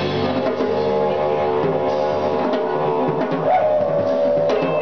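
Didgeridoo droning live through a microphone over a drum kit beat, its steady low tone sliding briefly upward about three and a half seconds in.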